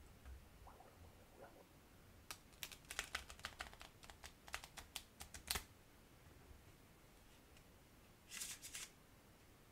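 Bicycle playing cards being riffle-shuffled on a tabletop: a run of sharp clicks over about three seconds, then a short fluttering cascade near the end as the bridged cards fall together.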